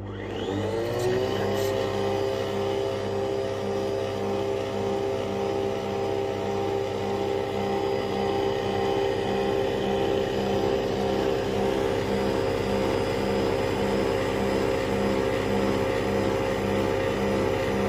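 Nespresso Vertuo Pop brewing: the capsule spins up with a rising whine over about the first second, then holds a loud, steady high-pitched spinning whine with a regular pulsing underneath as the coffee pours.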